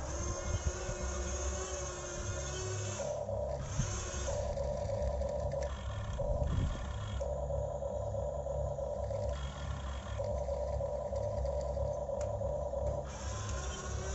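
Huina 1550 RC excavator's electric motors and gear drives whining, with higher-pitched parts cutting in and out every second or two as different functions are run.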